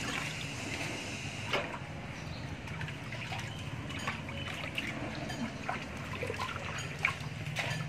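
Water trickling and dripping off a wet dog's coat as it is rinsed by hand, with scattered small splashes and drips.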